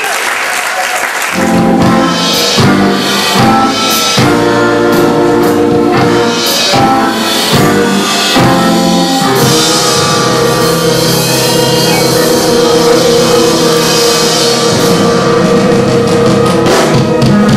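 Live rock band playing: electric guitar over a drum kit, with the full band coming in about a second in.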